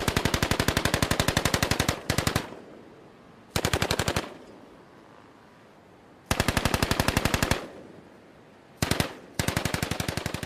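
Machine gun on a Humvee turret firing in bursts of about ten shots a second: a long burst of about two seconds, then several shorter bursts separated by pauses.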